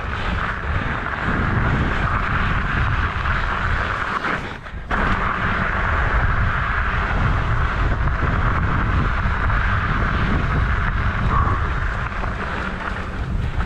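Wind buffeting the microphone over the rumble of a Trek Stache 29 mountain bike's 3-inch tyres rolling on a rocky dirt trail, steady throughout with a short lull about four and a half seconds in.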